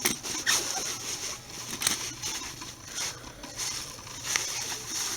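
Handling noise from a belt knife's strap being put on: rustling and scraping with a few light clicks.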